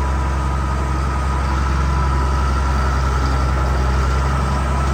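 Tractor engine running steadily at low revs while backing up a towed feed grinder, a constant low drone with a thin high whine over it.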